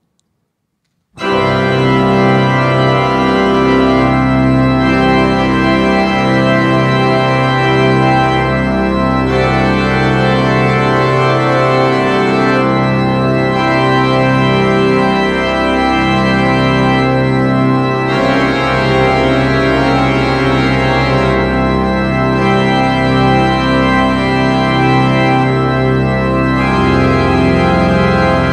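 Church organ playing a loud interlude of sustained full chords over a low bass line, starting abruptly about a second in, with the harmony changing every few seconds.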